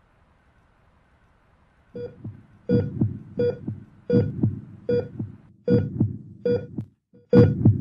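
Heartbeat thumps with a patient monitor's short beep on each beat, at a steady rate of about 80 beats a minute, starting about two seconds in.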